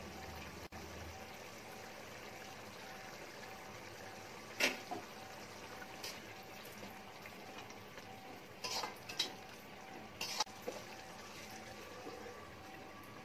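Mutton liver gravy simmering in an aluminium kadai, with a metal spatula clinking and scraping against the pan a few times as it is stirred. A glass lid is set on the pan near the end.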